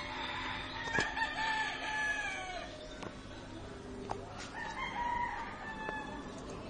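Rooster crowing: one long crow that falls away at its end, then a second, shorter crow about four and a half seconds in.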